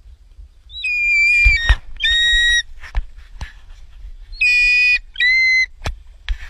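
A bird of prey gives four high, piercing, nearly level calls in two pairs, each about half a second to a second long, with a few sharp clicks between and after them.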